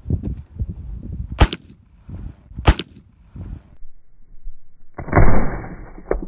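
Two sharp clicks about a second apart, then a single black-powder rifle shot about five seconds in: a loud boom that carries on for about a second.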